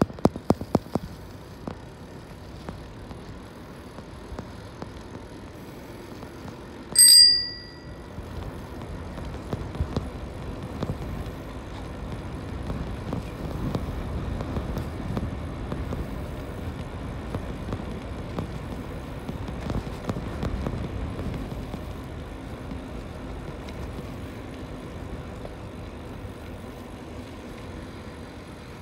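A bicycle bell rings once about seven seconds in, a single bright ding that fades within a second. Under it runs the steady rush of wind and tyre noise from the moving bike, swelling for a while in the middle.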